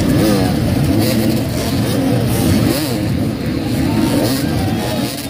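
Several enduro motorcycle engines revving together, their pitch rising and falling as the riders throttle over an obstacle.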